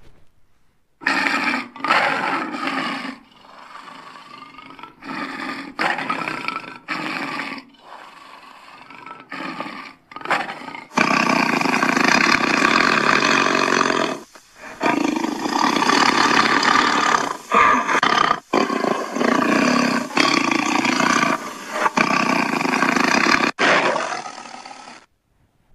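Leopard growling and roaring: several short growls over the first ten seconds, then one long continuous roar from about eleven seconds in, each part starting and stopping abruptly.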